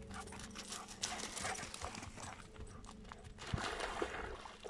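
Footsteps crunching and scuffing over stony, scrubby ground, with twigs and dry brush rustling; a louder burst of rustling and crunching comes about three and a half seconds in.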